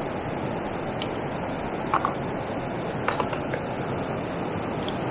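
Steady rushing of water from a weir mixed with wind, with a few light clicks and ticks on top, the sharpest about two and three seconds in.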